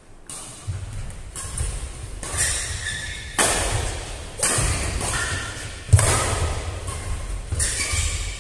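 Doubles badminton rally played with a plastic shuttlecock: about seven sharp racket hits, roughly one every second, with thudding footfalls on the court, echoing in a large hall.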